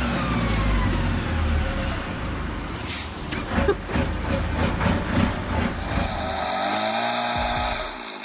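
Tatra 138 S3 truck's air-cooled V8 diesel engine working under load, its pitch dropping at the start, with short air-brake hisses and a run of sharp knocks and cracks in the middle.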